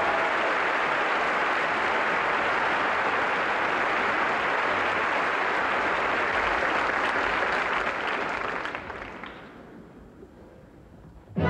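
Theatre audience applauding steadily, the applause dying away about nine seconds in. An orchestra starts playing right at the very end.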